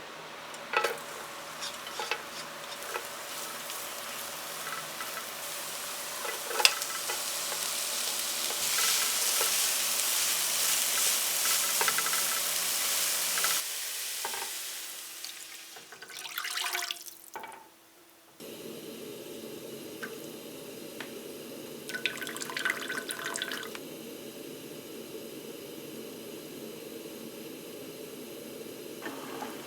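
Running water from a kitchen tap with scattered clinks of utensils, growing louder for about thirteen seconds; then, after two abrupt cuts, other steady kitchen noise with a few clinks.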